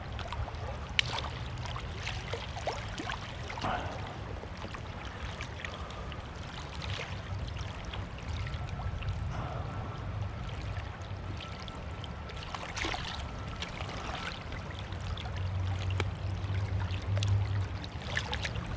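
Running stream water flowing steadily, with scattered small clicks and splashes over a low steady rumble.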